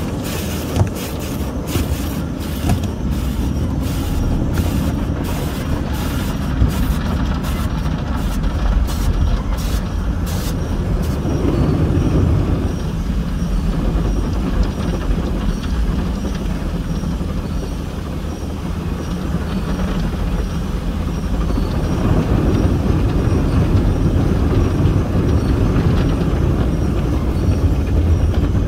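Automatic car wash heard from inside the car: cloth brush strips slap against the windshield and body in quick repeated strokes, stopping about ten seconds in. A steady, heavy low rumble of the wash machinery and water on the car runs underneath and grows louder near the end.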